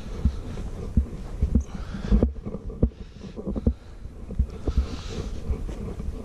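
Footsteps of a person walking, heard as dull low thuds about twice a second over a low rumble.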